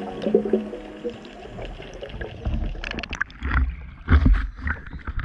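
Muffled underwater sound, then the camera breaks the surface: water splashing and sloshing around the camera housing, with low thuds of waves and wind hitting the microphone.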